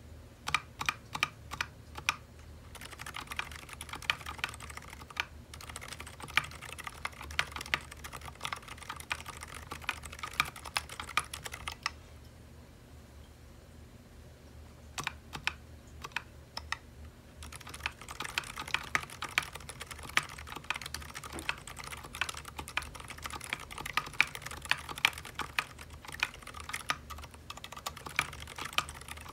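Typing on a custom HHKB-layout mechanical keyboard with Zilent V2 silent tactile switches: rapid runs of muted keystrokes, broken by a pause of a few seconds about halfway through.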